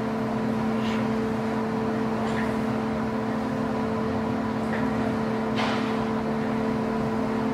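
A steady mechanical hum, with a few faint soft clicks, the clearest about five and a half seconds in.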